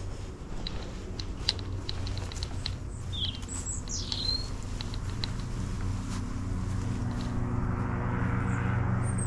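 Birds chirping a few times, with short rising and falling calls about three to four seconds in, over a steady low hum and scattered light ticks.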